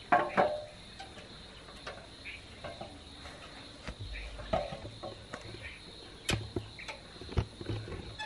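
Aluminium ladder knocking and clanking in scattered sharp strokes as a man climbs it against a tree trunk. A steady high drone of crickets runs under it, with a few short chirps.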